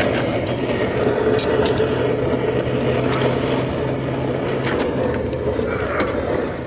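Homemade propane foundry furnace burner running with a steady roar, with a few faint ticks over it.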